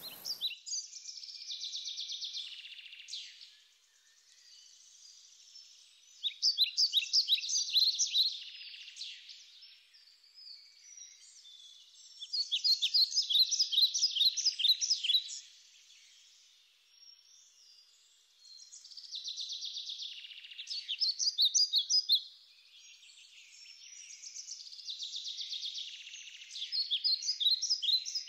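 A songbird singing: five phrases of rapid, trilled notes, each lasting about three seconds, with pauses of a few seconds between them.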